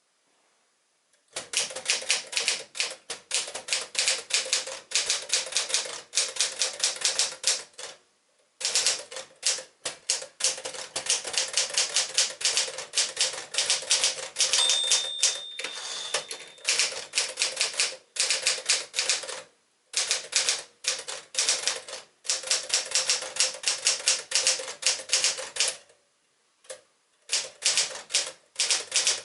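1963 Smith-Corona Sterling 5AX manual typewriter being typed on: fast runs of sharp keystroke clacks broken by short pauses. Its margin bell rings once about halfway through.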